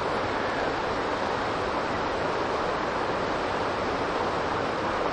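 Steady, even rushing of a mountain river's running water.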